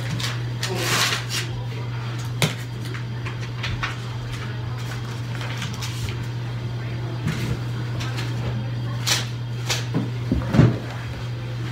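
A steady low hum with a few light clicks and knocks scattered through it; the loudest knock comes about a second before the end. Short hisses are heard about a second in and again near the end.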